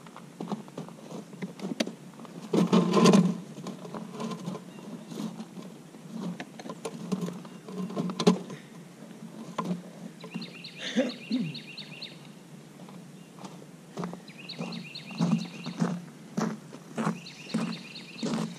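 A bird calls in three quick series of rapid repeated high notes in the second half. Under it are scattered knocks and low rumbling pulses, with a louder burst about three seconds in.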